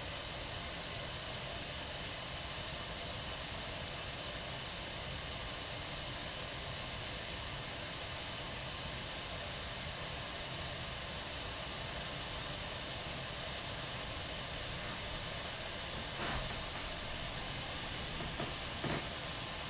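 Kettle boiling: a steady hiss of steam over a low rumble, with a few faint clicks near the end.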